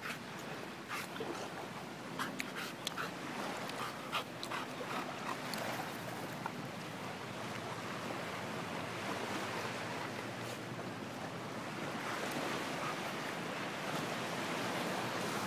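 Steady rushing of surf and wind, with scattered sharp crackles and taps over the first six seconds.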